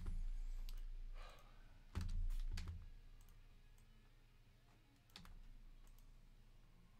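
Scattered computer mouse clicks and keyboard taps, with a duller knock about two seconds in, over a low steady hum.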